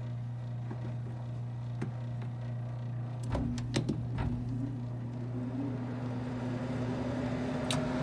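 Nordyne gas furnace humming steadily; a few sharp clicks about three seconds in as a jumper is clipped across the thermal fan switch, then the blower motor starts and spins up with a slowly rising whine, getting louder. The blower runs only because the faulty fan switch, which is not closing as the furnace heats, is bypassed.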